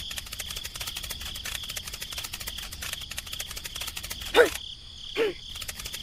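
Rapid cricket-like insect chirring with a steady high tone, broken by two short, loud squeaky cries less than a second apart near the end.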